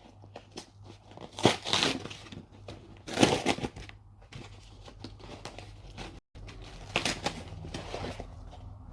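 A mail package being opened by hand: packaging crumpling, crinkling and tearing in several separate bursts.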